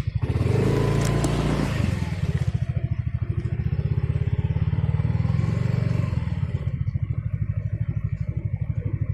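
Vehicle engine just after starting: it revs up briefly in the first couple of seconds, then settles into a steady, evenly pulsing idle.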